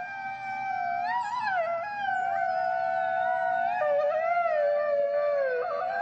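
Several wolves howling together: long, overlapping howls at different pitches, each sliding slowly up and down.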